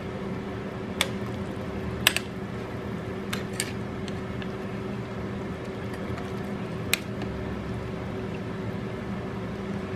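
A metal ladle moving through a pot of soup with whole silky chickens, the liquid sloshing, and several sharp clicks of the ladle against the pot, over a steady low hum.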